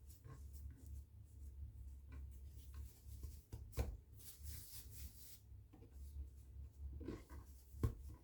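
Hands rubbing, pressing and rolling baguette dough on a board while shaping the loaves, with two sharper knocks, one about four seconds in and one near the end, over a low hum.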